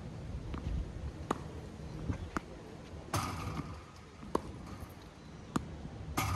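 Tennis practice with a ball machine: tennis balls popping sharply off a racket and the court, about one a second, with two longer noisy bursts about three seconds apart, over a steady low rumble.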